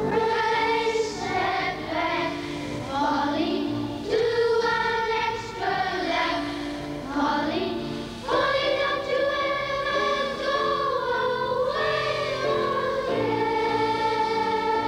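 A choir singing in long, held chords, with a fresh phrase starting about eight seconds in.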